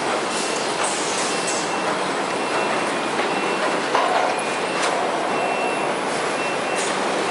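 Automatic palletizing line running, its chain conveyors and machinery making a steady rattling noise, with scattered knocks, the loudest about four seconds in. A short, high-pitched beep sounds on and off throughout.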